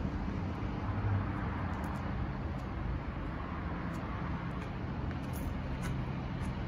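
Steady urban background noise: an even rumble with a low, constant hum, like distant motor traffic.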